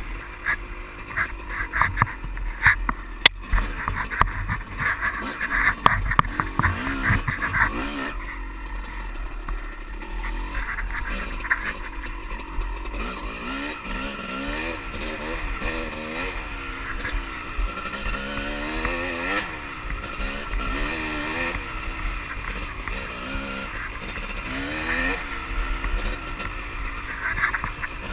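Honda dirt bike engine revving up and easing off again and again over a rough trail, heard from a camera on the rider, with wind on the microphone. In the first several seconds there is a lot of clatter and knocking from the rocky ground.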